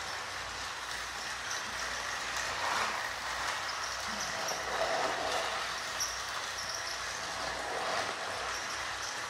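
Several motorized toy trains running on plastic track: a steady whir of small motors with the rattle of wheels on the track.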